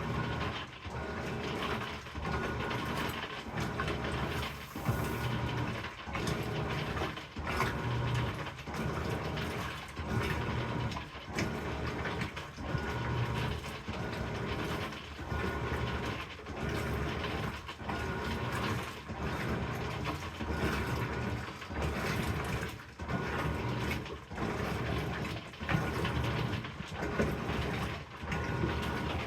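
Amana top-load washing machine agitating, its stroke reversing about every second and a half, with a crackling noise during agitation whose cause the owner does not know.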